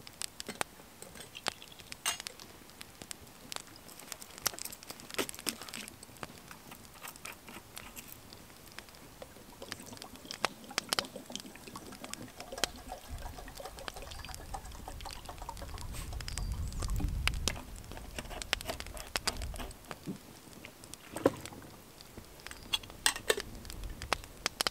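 Popcorn popping and rattling in a small popcorn pan held over a campfire: irregular sharp pops through the whole stretch, mixed with the crackle of the fire. A low rumble swells up and fades in the middle.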